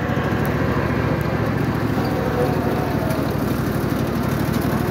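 Garden tractor's small engine running steadily with a fast even beat while driving along and towing a wagon.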